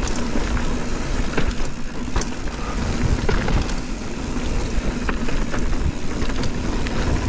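Mountain bike rolling fast down a dirt singletrack: tyres rumbling over the dirt, with wind on the microphone and scattered sharp rattles and knocks from the bike's chain and frame over bumps.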